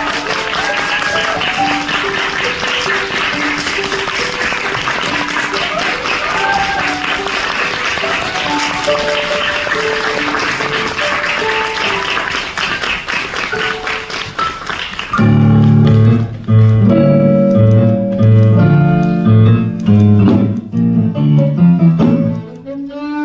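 Audience applauding over live instrumental music. About fifteen seconds in, the clapping fades and loud low notes from the stage band take over, moving step by step in pitch.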